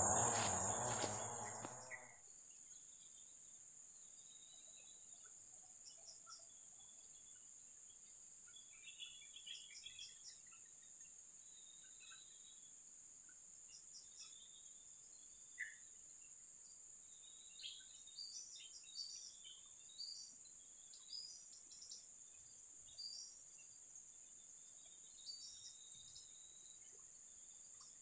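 Insects keep up a steady high-pitched trill over a quiet riverside, with scattered short bird chirps. A louder noise fills the first two seconds and then dies away.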